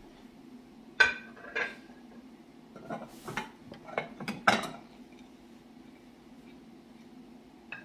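Ceramic saucers clinking against each other as they are lifted off a stack and set back down: one sharp clink about a second in, another just after, then a run of clinks and light scrapes between three and five seconds.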